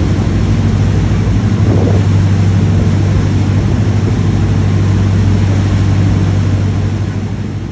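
A sportfishing boat's engine running steadily underway: a loud, even drone with a rush of wind and water over it, fading out near the end.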